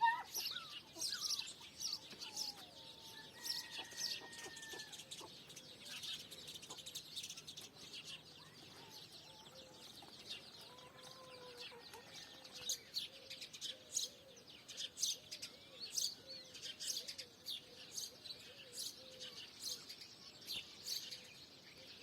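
Small birds chirping and twittering in quick, overlapping calls, with hens clucking in a lower, repeated series through the middle.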